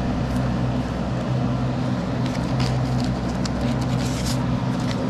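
Steady low mechanical hum, like a motor running, with a cluster of short light clicks and rustles in the middle.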